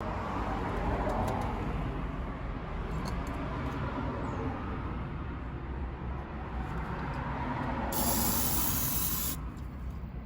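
A steady noisy rustle with a few faint clicks, then a loud spraying hiss that lasts about a second and a half, near the end.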